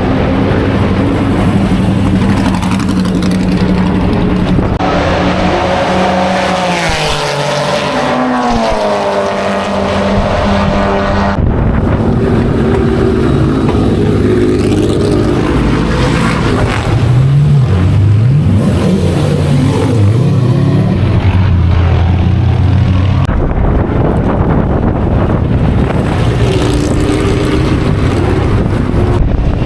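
Historic racing car engines at high revs, their pitch rising and falling as the cars accelerate, shift and pass, in several clips joined by abrupt cuts.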